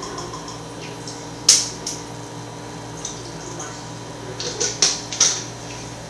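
A few short, sharp clicks and knocks of a plastic juice container and a bottle being handled at a kitchen counter, the loudest about a second and a half in and a quick cluster of three or four near the end, over a steady low hum.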